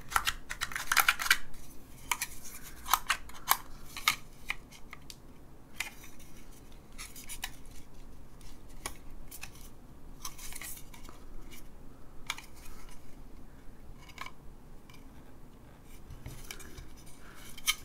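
Irregular clicks, taps and light scrapes from a small plastic-and-aluminium power supply tester being handled, worked and wiggled in the hands as its stuck circuit board is coaxed out of the aluminium case. The clicks come thickest in the first second or so.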